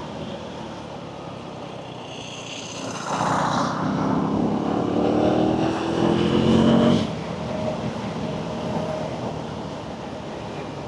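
Motorcycle engine accelerating in traffic: a steady road hum, then about three seconds in the engine note climbs steadily in pitch for about four seconds before the throttle closes suddenly.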